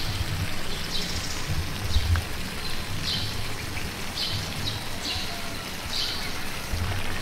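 Water jet from a homemade PVC pipe rig splashing steadily onto dirt and grass, with short high sounds recurring about once a second.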